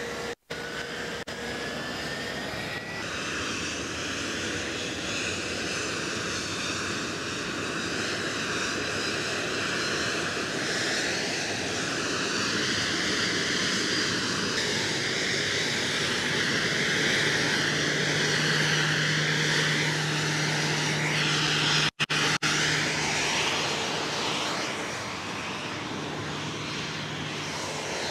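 Jet turbine whine of a Boeing 737-800 during pushback, heard from the tug at the nose gear, over a steady rumble; the whine wavers in pitch and grows louder toward the middle. A low engine hum from the pushback tug joins about two-thirds of the way through, and the sound drops out briefly twice.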